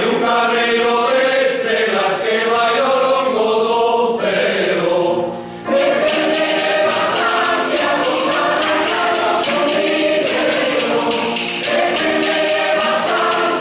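Mixed choir of men's and women's voices singing a Galician foliada. The singing dips briefly about five seconds in, then comes back fuller with a steady rhythmic percussion beat under it.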